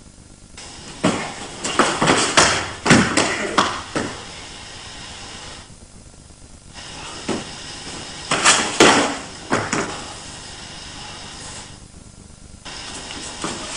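Two men grappling: a flurry of sharp thuds, slaps and scuffs of bodies, hands and feet on the floor, about a second in and again about seven seconds in, with quiet stretches between.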